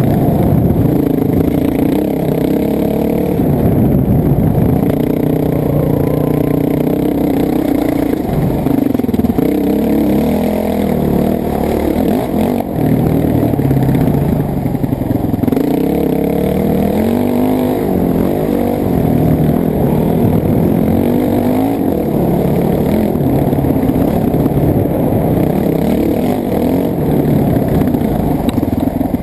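Off-road dirt bike engine running hard, its pitch rising and falling again and again as the throttle opens and closes.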